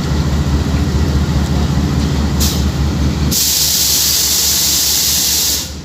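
GEU 20 (GE U20C) diesel-electric locomotive running with a low, rhythmic rumble. About three seconds in a loud hiss starts, lasts about two seconds and cuts off suddenly.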